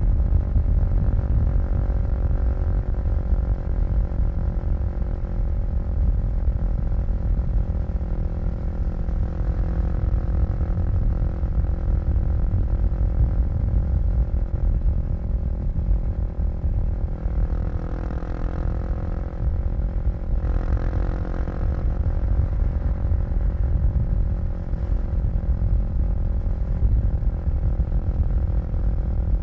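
Kawasaki KLX250 single-cylinder four-stroke engine running under way in traffic, its pitch shifting with the throttle, most clearly about two-thirds of the way through.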